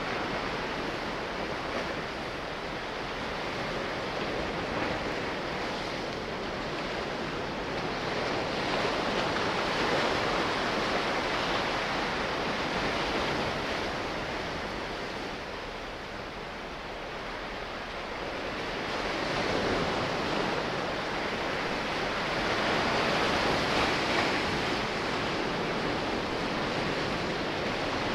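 Sea waves washing ashore: a steady rush of surf that swells louder twice and eases off again.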